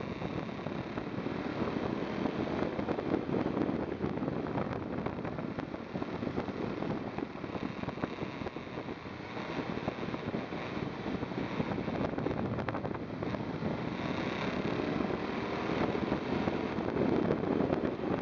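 KTM 990 SMT motorcycle's V-twin engine running while riding, its pitch rising and falling, with wind rushing over the microphone.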